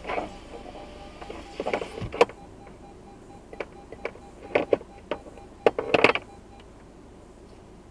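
Handling noises inside a parked car: a run of short clicks and rustles, the sharpest about two seconds in and a cluster near the six-second mark. A faint repeating beep runs underneath and stops about six and a half seconds in.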